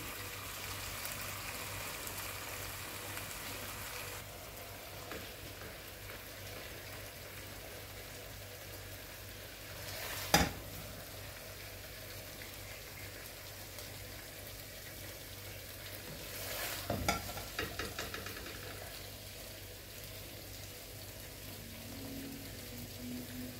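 A metal spatula scraping and knocking in a wok as cooked potato slices are scooped out and served onto a plate, with one sharp clank about ten seconds in and a run of knocks a little later. A faint sizzle from the hot pan drops away after about four seconds.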